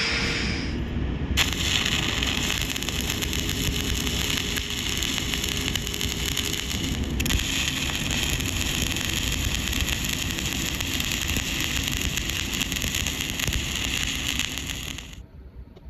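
Shielded metal arc (stick) welding: the arc strikes sharply about a second and a half in and runs with a steady, dense crackle and sizzle, with a brief dip about halfway, then cuts off abruptly near the end. An angle grinder is winding down in the first second.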